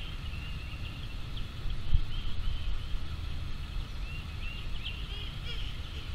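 Small birds chirping in many short, quick calls over a steady low rumble, with a single thump about two seconds in.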